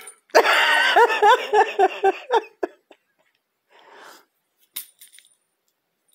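A woman laughing in a quick run of pitched 'ha-ha' bursts for about two seconds, followed by a faint rustle and a click.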